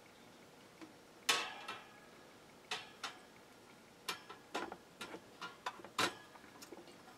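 A table fan's wire front guard being handled and fitted back onto the rear guard: about a dozen irregular clicks and taps. The loudest come about a second in and near the six-second mark, each with a brief metallic ring.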